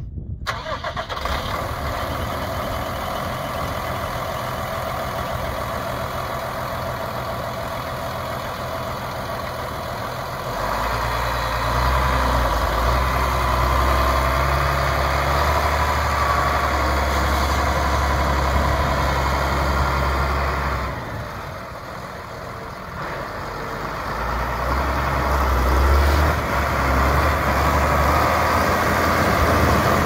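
Deutz-Fahr Agrotron 215 tractor's diesel engine, just started and running steadily. It gets louder and heavier about ten seconds in, eases off for a couple of seconds after twenty seconds, then builds up again near the end.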